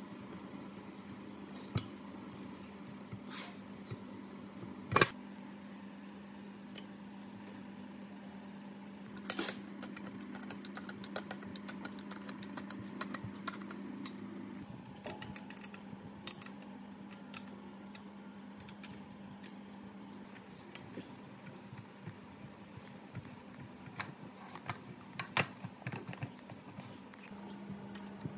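Light metallic clicks and clinks of a wrench and metal parts as a twin-cylinder air compressor pump is put back together, with one sharp metal knock about five seconds in, over a steady low hum.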